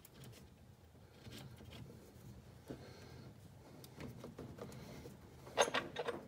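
Faint rustling and light clicks of hands working a hose clamp and a silicone heater hose into place, with a quick cluster of sharper clicks near the end.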